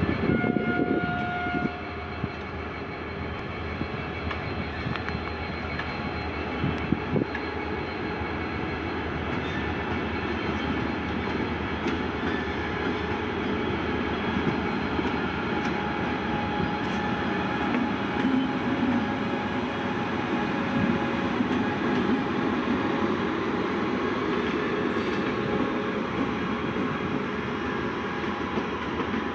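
WAP-7 electric locomotive and its passenger coaches rolling past at low speed: a continuous rumble and clatter of wheels on rail, which swells somewhat as the locomotive comes by midway. A held horn-like tone from the train dies away about two seconds in.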